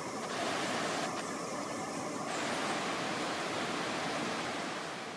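Fast-flowing river running over rapids and rocks: a steady rush of water.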